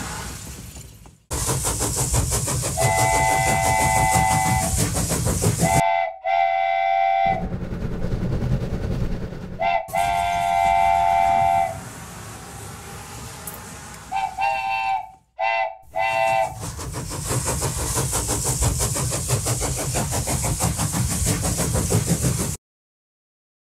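Toy trains running on plastic track with a steady rattling rumble. Over it, a toy train horn sounds several times, three longer blasts and then a few short toots. The sound cuts out abruptly near the end.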